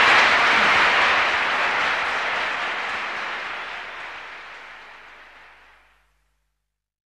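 Audience applauding at the end of a live song recording, dying away gradually to silence about six seconds in.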